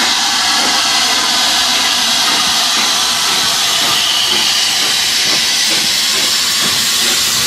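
Loud, steady hiss of steam blowing from the open cylinder drain cocks of LNER A3 Pacific steam locomotive 60103 Flying Scotsman as it rolls slowly past.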